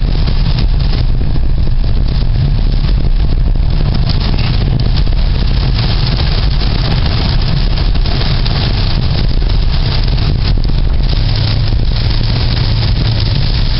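Steady low rumble of a moving vehicle, with an even hiss over it that neither rises nor falls.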